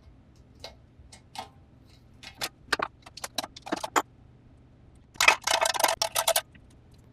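Hand deburring tool scraping the edge of a freshly drilled hole in sheet-metal engine tin: scattered clicks and short scrapes, then a quick run of rapid scraping strokes about five seconds in.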